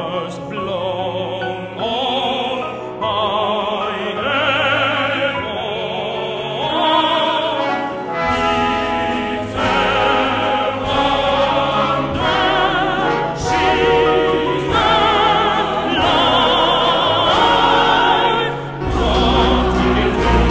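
Choir singing in a classical style with strong vibrato over instrumental accompaniment, played back through many loudspeakers in a large hall. A deep low part comes in about eight seconds in and swells near the end.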